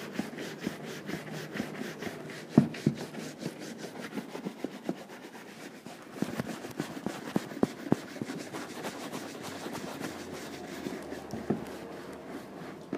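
Large horsehair brush buffing a black leather boot freshly coated in wax polish, a fast even rhythm of swishing back-and-forth strokes: the final buff that brings up the shine. A few sharper knocks cut in, the loudest about two and a half seconds in.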